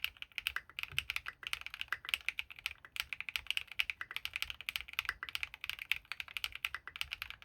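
Fast continuous typing on a Geonworks Frog TKL mechanical keyboard with lubed Gateron RAW switches, aluminium plate and Signature Plastics SA keycaps: a dense, steady run of keystroke clacks.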